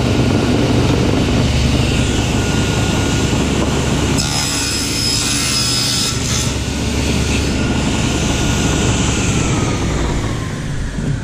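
Table saw running with a steady whine, its blade ripping through a sheet of masonite (hardboard) for about two seconds starting four seconds in. Near the end the blade winds down, its whine falling in pitch.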